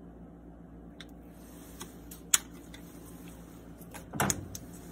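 Steady low hum of a laboratory biosafety cabinet's fan, with a single sharp click about two seconds in and a short clatter of a hand pipette being handled and set down near the end.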